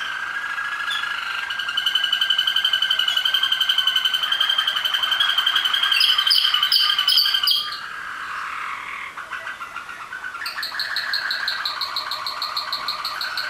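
Waterslager (Malinois) song canaries from a four-bird show team singing: fast trills under a long held high note, a few loud rising notes about six to seven seconds in, then a rapid pulsed trill of about eight notes a second near the end.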